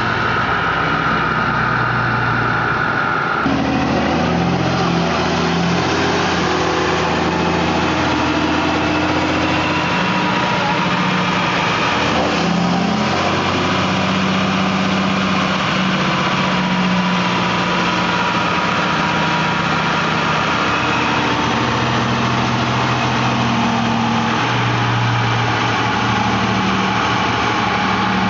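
Dodge Ram's Cummins inline-six turbo-diesel running steadily at low revs on a chassis dyno, its pitch shifting a little now and then with no full-throttle pull. A high steady whine sounds over it in the first few seconds, then stops.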